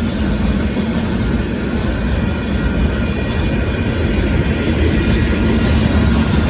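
Union Pacific freight train of hopper cars passing close by: a steady, loud rumble with a low drone running under it.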